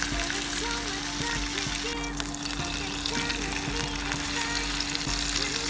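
Basa fish fillet sizzling as it fries in a nonstick pan, a steady crackling hiss, with soft background music.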